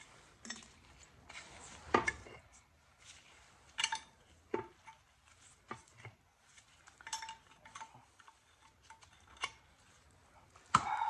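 Metal clinks and taps of a wrench and bolts against the flywheel of a 1928 Chrysler inline-six engine, some strikes leaving a short ringing note. The loudest clanks come about two seconds in and near the end.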